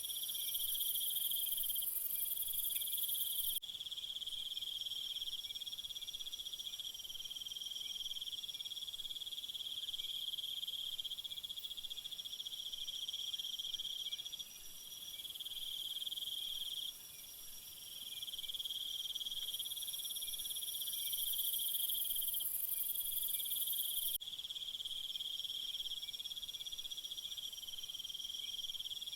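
Crickets chirping in a steady chorus: a high trill held for a few seconds at a time with short breaks, and a higher hiss above it that cuts off abruptly twice.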